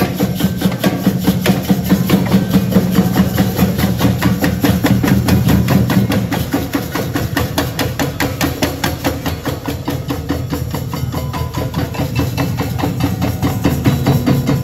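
Street drumming band playing together: deep bass drums under a fast, steady stream of sharper drum and hand-percussion strokes.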